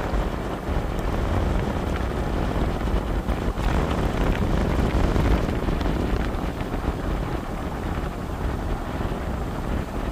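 Steady low wind rumble on the microphone over the road noise of a moving car.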